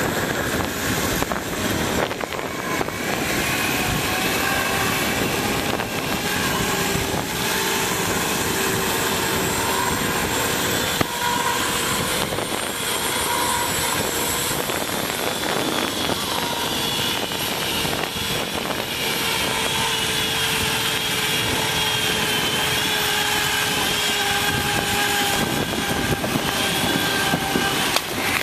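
Zip line trolley running down the steel cable: the pulleys whine steadily over a constant rush of wind, with a high tone that wavers in pitch in the second half.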